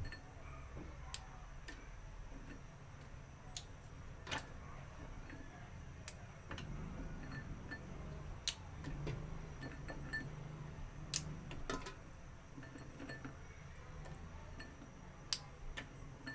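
Tamarind pods being snapped and broken apart by hand over the pot, giving scattered sharp cracks and small knocks at irregular intervals, about a dozen in all, over a low steady rumble.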